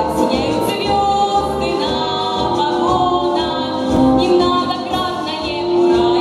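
A teenage girl singing a Russian pop-style song live into a handheld microphone over a backing track with a steady beat.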